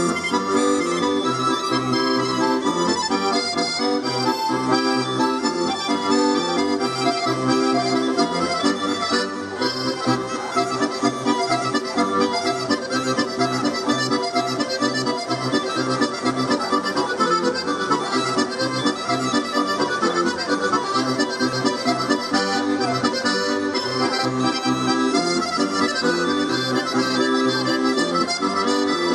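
Accordion playing a lively tune, with a steady accompaniment of bass notes alternating with chords under the melody.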